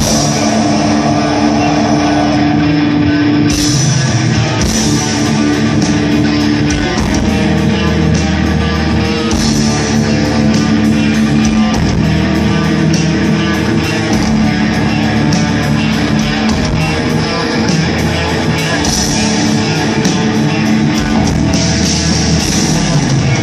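Black metal band playing live at full volume: distorted electric guitars and bass over drums. Sustained guitar chords ring out at first, and the drums come in with fast strikes about three and a half seconds in.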